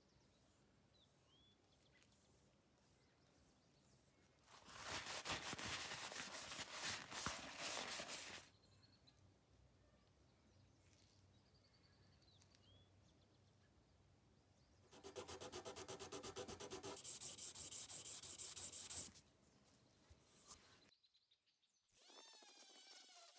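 Two spells of rubbing on a wooden screwdriver handle as finish is worked into the wood, each a few seconds long, the second with fast regular strokes. Near the end a rotary tool with a felt polishing wheel spins up with a whine that glides in pitch.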